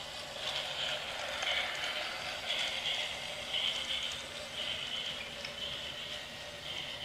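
HO-scale toy steam train running past on its plastic track: a steady mechanical rattle of motor and wheels that swells about once a second.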